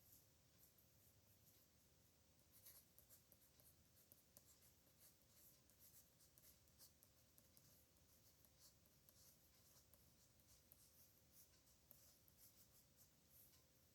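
Pen nib scratching across paper in many short, irregular strokes, faint.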